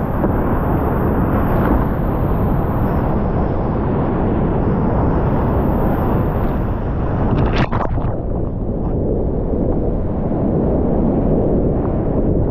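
Steady, loud rush of whitewater rapids around a whitewater kayak, heard from a camera on the paddler, with a few short sharp sounds about two-thirds of the way through.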